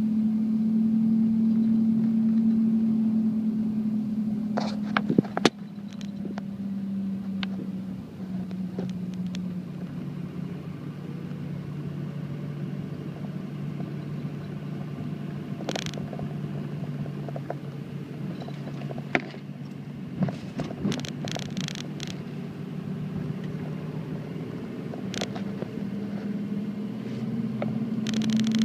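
A car driving along the road, heard from inside the cabin: a steady engine and road hum that drops in pitch about eight seconds in and rises again near the end. Scattered short clicks and knocks sound over it.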